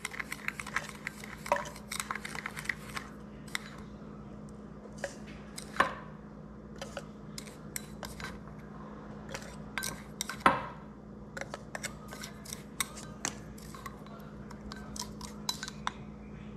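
Kitchen clatter: dishes and utensils clinking and tapping in scattered light knocks, with one louder knock about ten seconds in. A steady low hum runs underneath.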